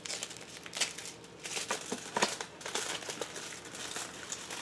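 Crinkling of a chocolate bar wrapper being handled and opened by hand: a run of irregular crackles.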